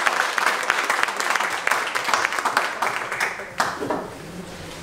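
Audience applauding, the claps thinning out and stopping about three and a half seconds in.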